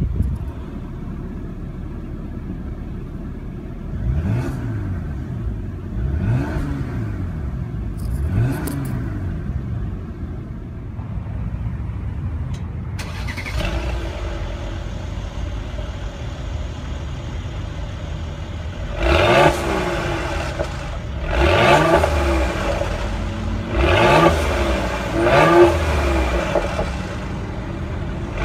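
2016 Mercedes-Benz GLE450 AMG Coupe's 3.0-litre twin-turbo V6 idling in sport mode and being revved: three short revs heard from inside the cabin, then, after a cut, four louder revs heard at the exhaust tips, each rising and falling back to idle.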